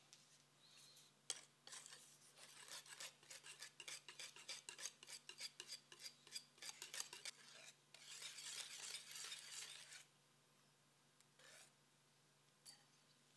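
Wire whisk beating sour cream into cheesecake batter in a glass bowl, the wires tapping and scraping the glass at about four or five strokes a second. It turns to a faster continuous swishing near the end and stops about ten seconds in.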